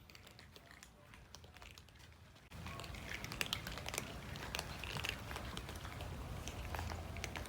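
A cat eating, with quick irregular clicks and crunches of chewing. The sound is faint at first and suddenly louder from about two and a half seconds in.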